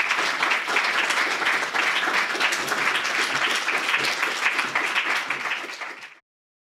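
Audience applauding steadily after a lecture, a dense patter of many hands clapping that cuts off abruptly about six seconds in.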